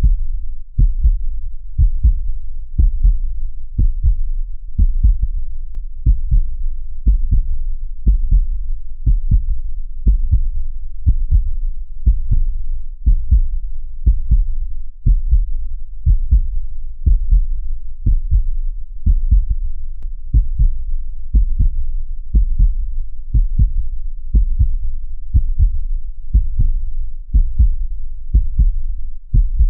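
Steady heartbeat: a low double thump, lub-dub, repeating evenly about once a second.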